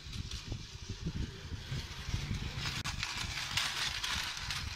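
Battery-powered Tomy plastic toy train running on its plastic track: a quick, uneven clatter of small knocks with a motor whirr, growing louder from about halfway through.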